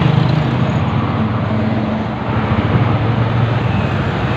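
Steady engine hum and road noise heard from a moving vehicle in traffic.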